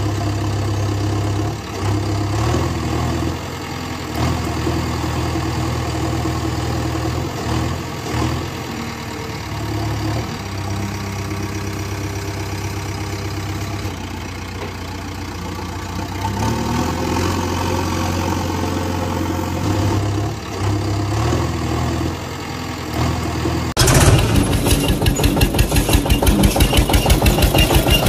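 Engine sound effect: a steady low engine hum that steps up and down in pitch. About 24 seconds in it cuts to a louder, rhythmic tractor-engine chug.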